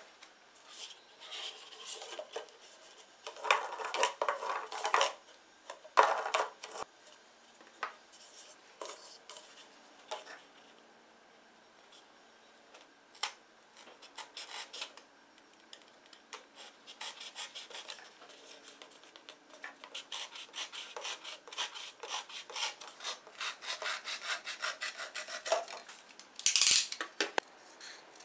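Scissors cutting through a paper cup, in a run of quick snips with paper rustling, after some scattered rubbing and handling of the stacked paper cups. The loudest rustle comes near the end.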